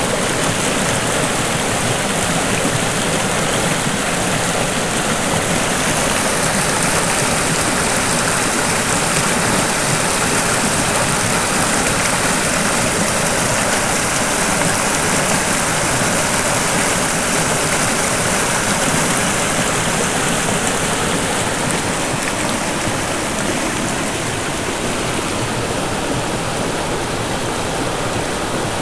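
Shallow mountain creek running over rocks and pebbles: a loud, steady rushing of water.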